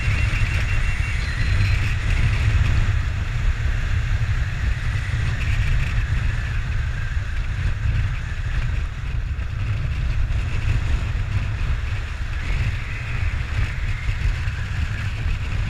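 Airflow buffeting the microphone of a head-mounted camera during a parachute descent: a steady, low rumble with a hiss over it.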